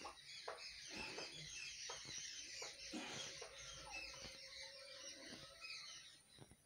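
Faint twittering of many small birds, with a few brief whooshes from a long stick being swung.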